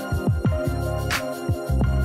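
Background music with a beat: deep bass notes that slide down in pitch, over held tones, with a sharp hit about a second in.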